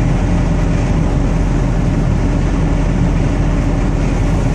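Steady road noise and engine drone inside a vehicle cab at highway speed, an even hum with no change.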